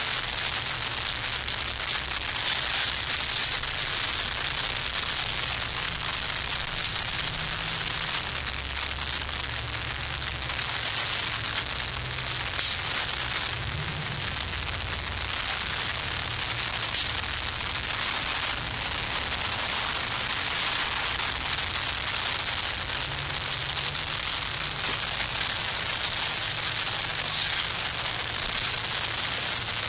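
Small twig wood fire burning in a homemade camp stove: a steady hiss with a few sharp crackling pops scattered through.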